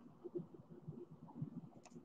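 Faint handling noise: fingers moving a baseball card close to the microphone, with soft irregular bumps and rustles and a light click near the end.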